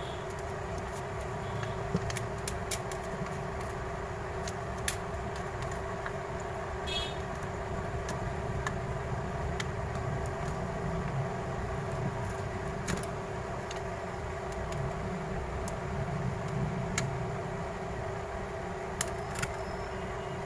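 A steady background hum with scattered light clicks and taps from small tools working on the phone while its display is being pried off.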